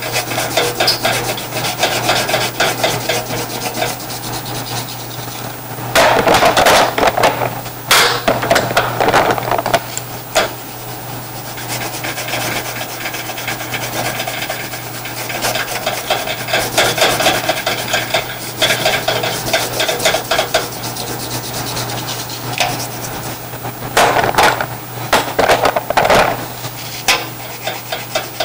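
Crayon rubbed back and forth on paper in quick coloring strokes, filling in an area. The strokes get louder for a couple of seconds about six seconds in and again near the end.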